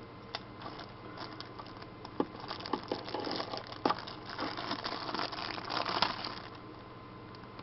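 Clear plastic packaging bag crinkling as it is handled and opened, with a few sharp clicks along the way; the crinkling stops about six seconds in.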